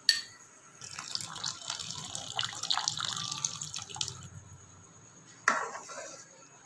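Cornflour-and-water slurry poured into a pot of simmering sweet corn soup to thicken it: a sharp clink, then about three seconds of liquid pouring and splashing, and another clink near the end.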